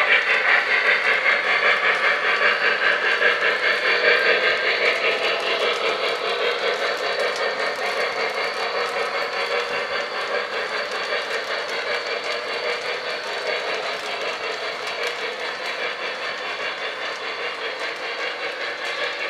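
Model 2-8-2 steam locomotive running with a train of freight cars: a steady, rhythmic running sound that slowly grows fainter.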